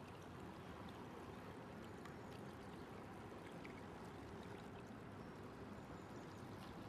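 Faint, steady rushing of water, with a few light ticks and no clear motor sound.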